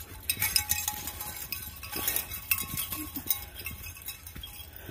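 Footsteps crunching and rustling through dry fallen leaves on a woodland trail, a quick run of crackles and clicks with light metallic jingling mixed in.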